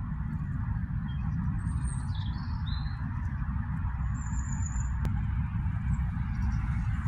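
Outdoor ambience: a steady low rumble and hiss, with a few faint high bird chirps about two and four seconds in.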